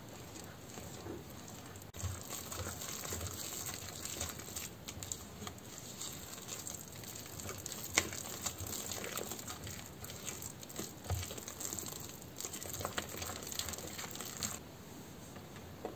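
Wooden spoon stirring and working flour into a soft dough in a glass bowl: continuous scraping and crumbly mixing noise with occasional sharp taps of the spoon against the glass.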